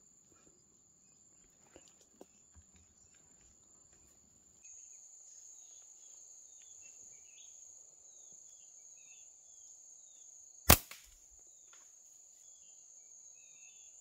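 Insects keep up a steady high buzz while a small bird gives short falling chirps about once a second. About ten seconds in comes one sharp crack, a slingshot shot, followed by a couple of faint clicks.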